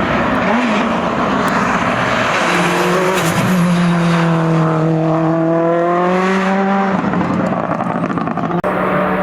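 Hill-climb race car engine at high revs going past at speed. A strong, steady engine note comes in about two and a half seconds in and cuts off abruptly about seven seconds in.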